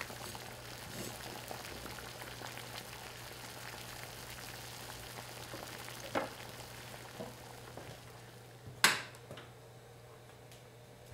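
A pot cooking on a stove burner, giving a steady low sizzling, bubbling hiss. A light click comes about six seconds in and a sharp clack near nine seconds in.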